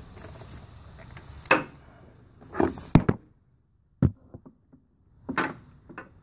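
A socket wrench clinking and knocking against metal as it is worked onto a hard-to-reach engine bolt: about six separate sharp knocks with short, quiet pauses between them.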